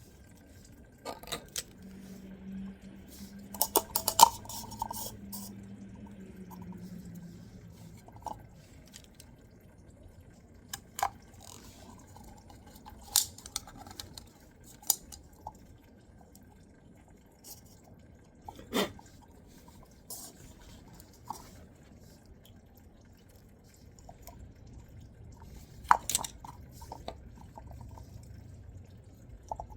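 Liquid dripping irregularly, one drop every second or few seconds, with a few light metallic clinks. It is most likely engine oil dripping into a drain pan.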